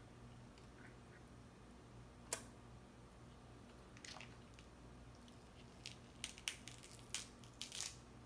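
Crab leg shells cracking and snapping in the hands as the meat is picked out: one sharp crack about two seconds in, then a run of short crackles and snaps near the end.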